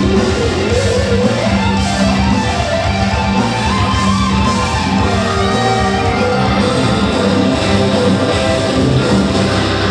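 Rock music led by electric guitar, with a steady held low note under a wavering melody line.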